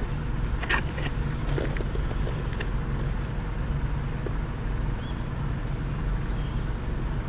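Forest ambience: a steady low rumble, with a few sharp clicks about a second in and faint high chirps of small birds near the middle.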